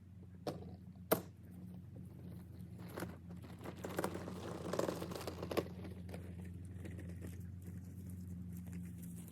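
Scattered sharp clicks and a crunching, rustling stretch of handling noise in the middle, over a steady low hum.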